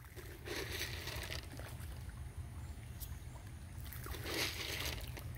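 Splashing on the surface of muddy bayou water, in two short spells of about a second each, one near the start and one about four seconds in, as catfish feed at the surface. A steady low rumble runs underneath.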